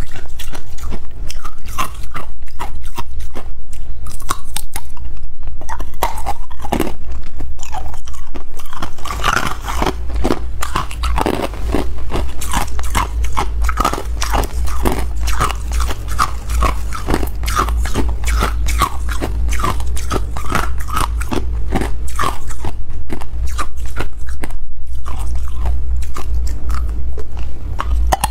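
Hard clear ice being bitten and chewed up close, a rapid run of sharp crunches and cracks between the teeth, over a steady low hum. The crunching is loudest for the first nine seconds or so, then slightly softer.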